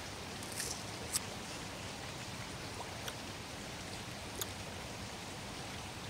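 A creek running with a steady rushing hiss, with a few faint, brief crisp clicks from a charred, parboiled cicada being chewed.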